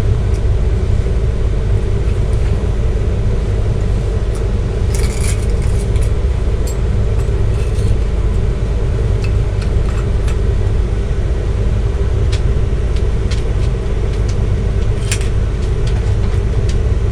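RV engine idling, a steady low drone heard from inside the rig, with a few light clicks of the fabric and tools being handled.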